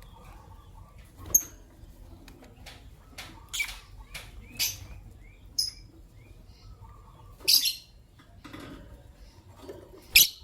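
Pet lovebirds giving short, sharp, high-pitched chirps: about six loud ones spaced a second or two apart, with softer chattering between.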